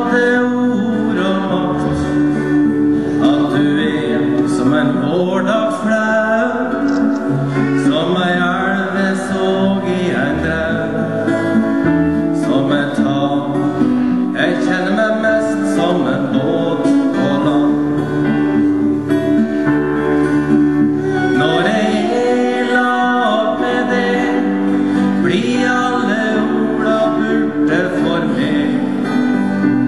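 Live acoustic band playing a song: acoustic guitar strummed and keyboard accompanying a singer.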